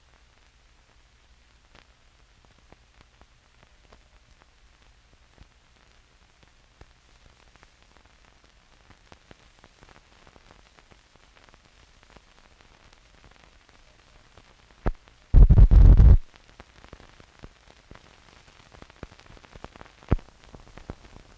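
16mm film soundtrack running out on leader: faint hiss with a low hum and scattered crackle and pops that grow busier about halfway through. A sharp pop, then a loud burst of noise lasting under a second about fifteen seconds in, and another sharp pop near the end.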